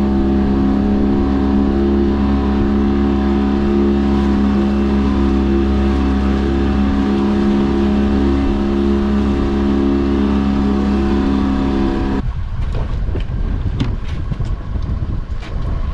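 Boat engine running at a steady pitch, cutting off suddenly about twelve seconds in. After that, wind and water noise with a few scattered knocks.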